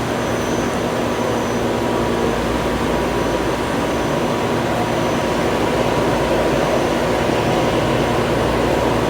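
Jet aircraft engines running at the airport: a loud, steady rushing noise with a faint whine, slowly getting a little louder.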